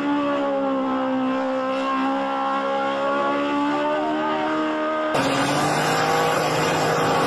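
Small ride-on vehicle's engine held at high, steady revs during a smoky burnout, its spinning tyres adding a hiss. About five seconds in it cuts to a steady road and wind roar from a car driving along a highway.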